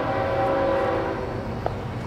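Freight locomotive air horn sounding a chord of several steady notes and tailing off about a second in, over the steady low rumble of the passing train. A single sharp click comes near the end.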